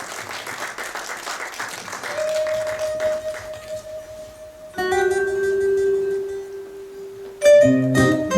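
Applause dying away in the first two seconds, then an instrumental introduction begins: a couple of long held notes, with a louder chord and a bass line coming in near the end.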